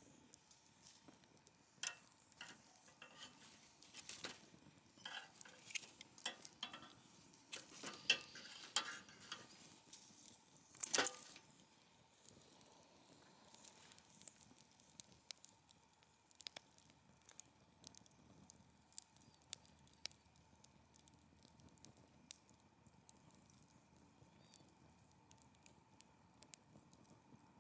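Wood fire crackling and popping in a fire pit: busy crackles for the first ten seconds or so with a sharp pop about eleven seconds in, then sparser, fainter crackles.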